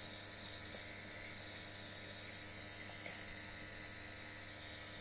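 Nebulizer compressor running: a steady electric hum with an even hiss of the mist.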